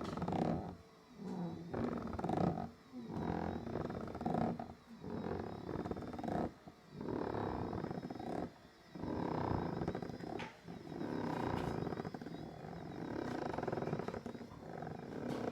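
Doctor Air 3D massage seat's massage mechanism running with an abnormal rumbling noise. The noise swells and drops about once a second at first, then runs in longer, steadier stretches.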